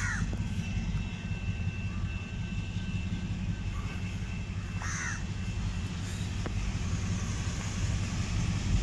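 Two short crow caws about five seconds apart, over the steady low rumble of an approaching Sri Lanka Railways M2-class diesel locomotive hauling a ballast train. The rumble grows louder near the end.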